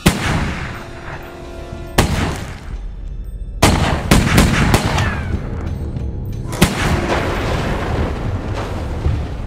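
Handgun shots: two single shots about two seconds apart, then a quick burst of several, then one more, each with an echoing tail, over film-score music.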